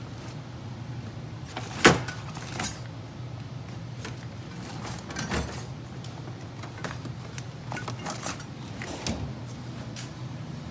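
Scattered clicks, knocks and clinks of things being handled inside the car, the loudest knock about two seconds in, over a steady low hum.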